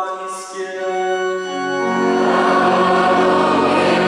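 Church singing: a single sustained sung line at first, then about a second and a half in the congregation and organ come in, full and loud.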